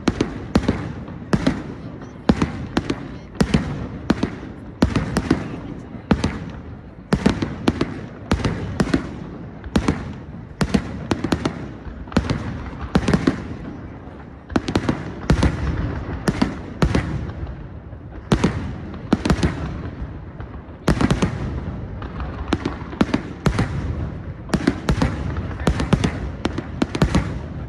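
Fireworks going off from a castillo (a firework tower): sharp bangs, about two a second, in an unbroken run.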